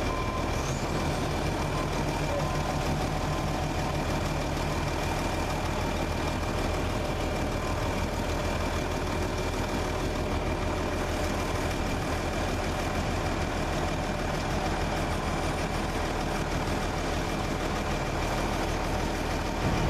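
Heavy farm harvest machinery running steadily: a continuous engine drone with a steady high-pitched whine.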